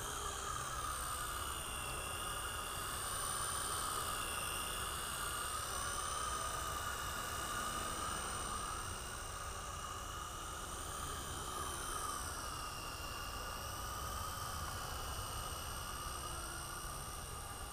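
Blade 120 S electric micro RC helicopter hovering, a steady high whine of its motor and rotor blades whose pitch wavers gently up and down as the throttle is worked to hold it low over the ground.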